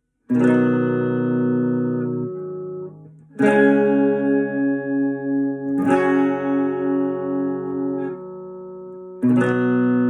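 Clean electric guitar playing slow chords: four chords, each struck once and left to ring for two to three seconds, with a wavering pulse in the second and third.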